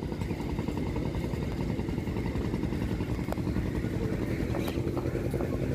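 A steady low engine drone with a fine, even pulse.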